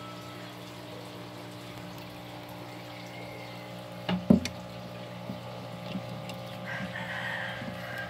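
A steady low mechanical hum, like a small motor running, with a couple of sharp knocks about four seconds in.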